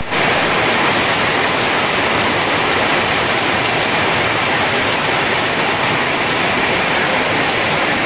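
Steady, loud rush of water, even and unbroken throughout.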